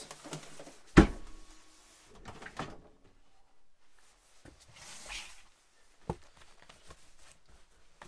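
A pull-out drawer fridge's lid shutting with a sharp knock about a second in. Then come scattered lighter knocks, rustles and clicks as the drawer is pushed closed and packages are handled.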